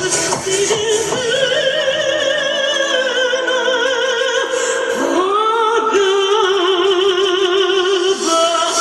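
Music with a singer holding long notes with vibrato; a new note slides up about halfway through and is held.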